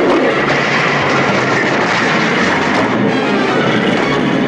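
A loud, continuous rumble and crash of a wall being broken through, under dramatic music.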